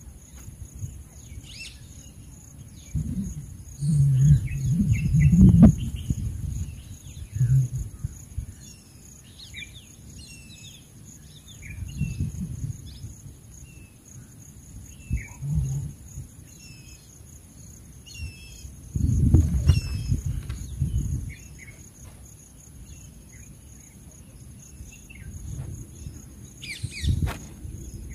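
Birds chirping in short, scattered notes over a steady high insect drone, broken by bursts of low rumbling a few seconds in and again about two thirds through.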